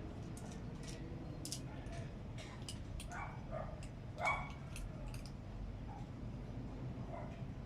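A cat eating, with many quick crunchy clicks of chewing, and a few short animal calls, the loudest just past the middle.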